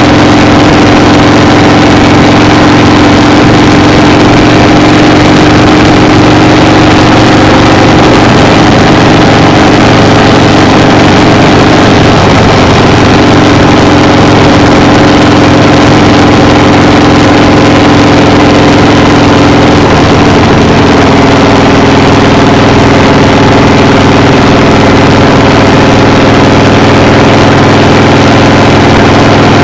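Loud, steady engine drone with a constant hum; its pitch shifts slightly about twelve seconds in and again about twenty seconds in.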